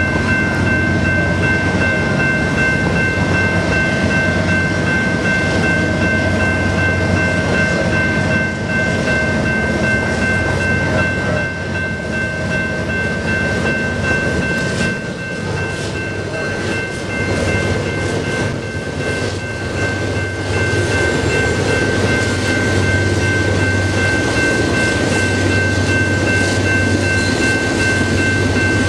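BNSF diesel locomotives hauling a double-stack intermodal train over an elevated flyover: a steady rumble of engines and rolling wheels with a steady high whine over it. The rumble eases a little midway and builds again toward the end.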